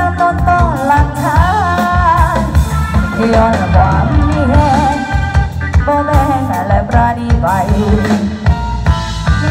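Live rock band playing: a woman sings a melody into a microphone over electric guitar, bass guitar and drum kit. The electric guitar is played through a Boss GT-10 multi-effects processor.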